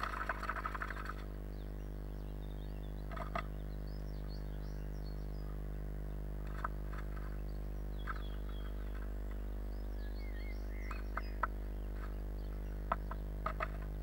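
Blue tit moving about inside a wooden nest box: a rustle of nest material at the start, then scattered scratches and taps on the wood. Faint birdsong from outside and a steady electrical hum run underneath.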